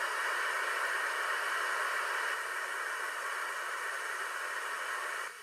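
Radio receiver hiss on the 2-metre amateur band with no station being received: a steady static noise, which dips briefly near the end.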